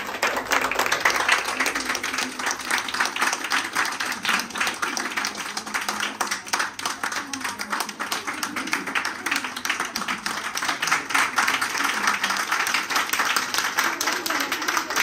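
A roomful of people clapping continuously, with voices mixed in.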